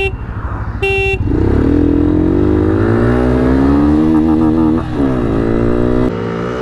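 A motorcycle horn gives its last short beep about a second in, the start signal of a drag race. Then a Bajaj Pulsar N160 and a TVS Raider 125 accelerate hard from a standstill, their engine pitch rising steeply, with upshifts near the end.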